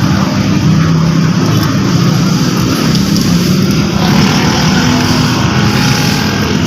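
A motor vehicle engine running steadily: a continuous low drone with no breaks.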